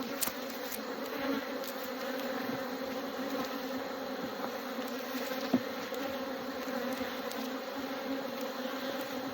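Honeybee colony buzzing around an open hive during an inspection: a steady, even hum. A single sharp click comes about five and a half seconds in.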